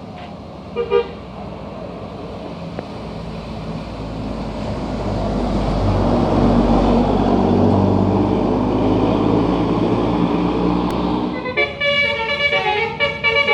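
A brief horn toot about a second in, then a large road vehicle, a bus, running past with its engine and tyres swelling up and fading. Near the end a bus's 'basuri' telolet musical air horn starts playing a quick melody of changing notes.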